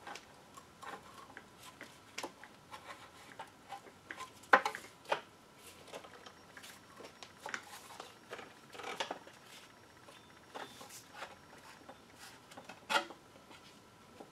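Scattered light clicks, knocks and rubbing from gloved hands working a timing belt onto the cam sprockets of an Audi 2.8 V6, with the sharpest knock about four and a half seconds in and another near the end.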